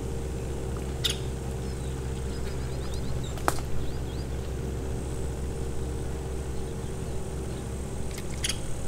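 Outdoor ambience: a steady low hum, like a distant engine, under a light hiss, with a bird chirping a quick series of notes a few seconds in and three sharp clicks spread through.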